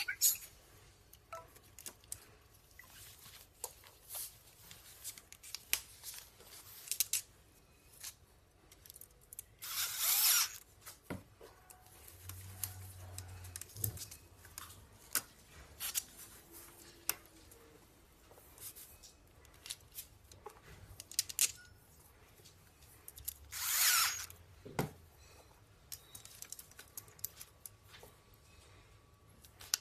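Patio umbrella's plastic hub and aluminium ribs being handled and fitted together: scattered light clicks and knocks, with two short, louder noisy sounds about ten and twenty-four seconds in.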